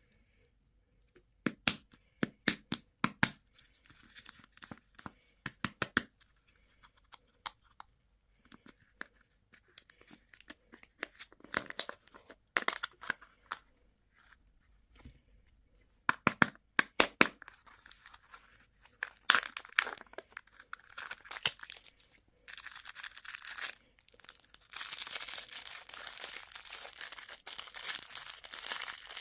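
Plastic candy and toy packaging being crinkled and torn open, with sharp crackles in quick runs. Near the end it turns into dense, continuous crinkling.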